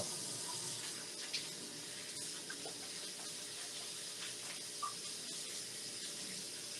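Kitchen sink tap running steadily, water splashing over hands being washed, with a few small splashes and knocks.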